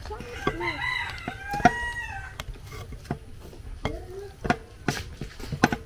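A rooster crowing once, a long arched call over the first two seconds or so, with sharp clicks of a spoon knocking against a glass mixing bowl as dough is stirred.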